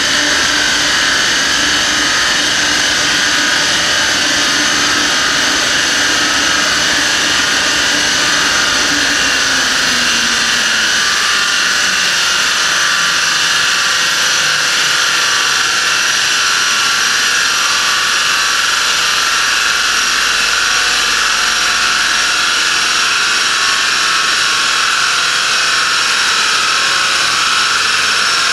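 Loud, steady rush of a large dyno cooling fan blowing on an Audi A4 1.9 TDI strapped to a chassis dyno. Under it a low hum slowly drops in pitch and fades over the first ten seconds or so, as the car and dyno roller wind down.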